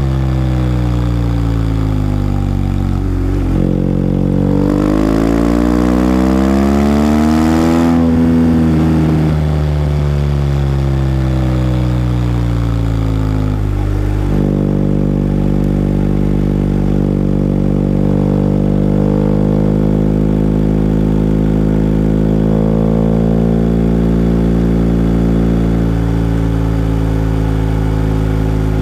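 BMW R1250GS's boxer-twin engine under way. Its pitch rises as it accelerates from about five to eight seconds in and then falls slowly as the revs drop. After a gear change about fourteen seconds in, it runs at a steady pitch.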